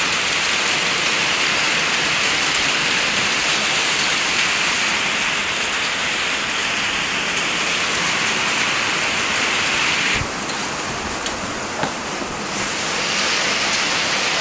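Heavy rain pouring down, a steady hiss that dips a little for a couple of seconds about ten seconds in.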